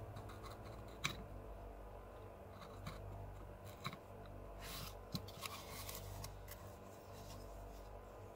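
Hand carving tool cutting into cottonwood bark: short crisp snicks, the sharpest about a second in, and a longer run of scraping cuts around five seconds in.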